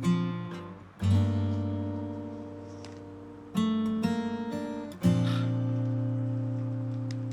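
Background music: slow strummed acoustic guitar chords, a new chord struck every second or two and left to ring out.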